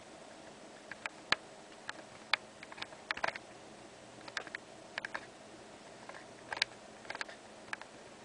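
Irregular sharp clicks and light taps, some in quick clusters, over a faint steady hum.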